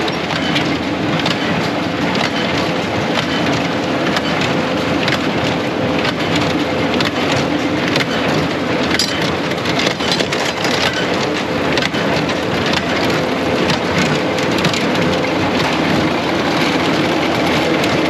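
A New Holland small square baler running behind a Kubota tractor, a dense steady clatter of many small clicks and rattles over the steady hum of the tractor's engine as the baler picks up and compresses the windrow.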